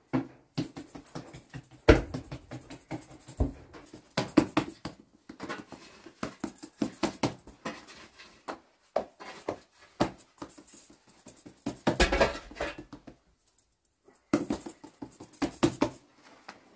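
Hands slapping and patting a round of flatbread dough, flipping it between the palms and pressing it flat on a cloth-covered cushion: a quick, irregular run of soft slaps, with a short pause about three-quarters of the way through.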